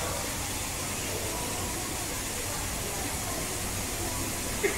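Steady hiss of background noise with faint voices in it, and one short sharp knock near the end.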